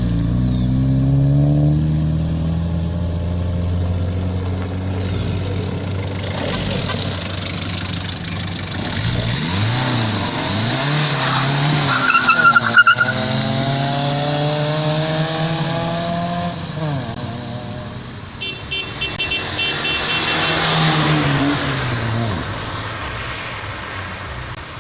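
Fiat Regatta cars driving off one after another, each engine revving so its pitch rises and falls as it goes by. A short high beep sounds about halfway through.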